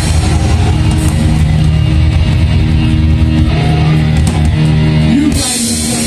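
Live heavy metal band playing: distorted electric guitars and bass holding sustained notes over drum kit and cymbals. The low held notes stop about five seconds in.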